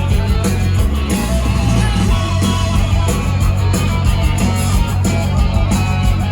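Live rock band playing loudly: driving electric guitars, bass and drums in a steady beat, recorded from the audience.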